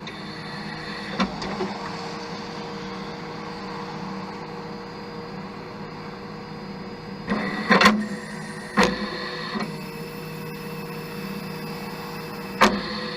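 A steady motor-driven whir with several fixed tones, broken by sharp knocks: one about a second in, a cluster and a single knock about two-thirds of the way through, and one near the end.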